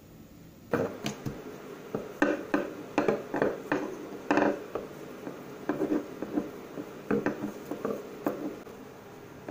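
Rolling pin working a ball of flour tortilla dough on a plastic-film-covered table: irregular knocks and clatters, roughly two a second, as it is rolled back and forth. They begin about a second in.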